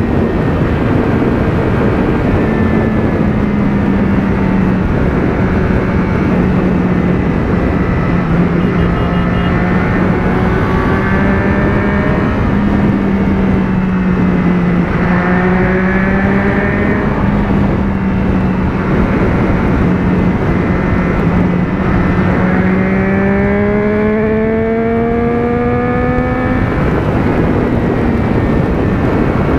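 Motorcycle engine running at a steady highway cruise, heard from the rider's seat under a heavy rush of wind and road noise; about three quarters of the way through the engine note climbs as the bike accelerates.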